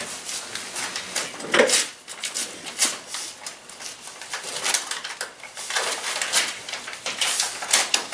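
Paper rustling and crinkling in irregular bursts as a sealed bid envelope is opened and the bid papers inside are handled.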